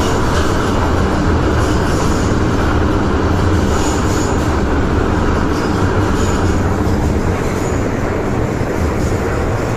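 Steady running noise of an MTR Island Line M-train heard from inside the car: a continuous low rumble of wheels on rail at speed, with a few brief, faint high squeaks.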